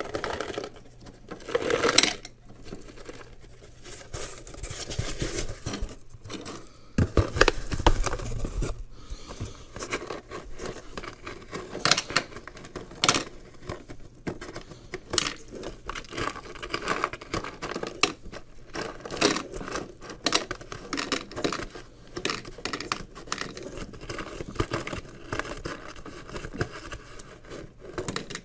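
Small cut lead-wire slug cores clicking and rattling as they are handled and shifted in a cardboard box, with irregular cardboard scraping and rustling.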